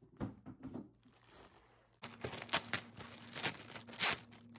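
Clear plastic bag crinkling as hands handle it and pull it open around a boxed package: a few sharp crackles at first, then a denser run of crackles from about two seconds in.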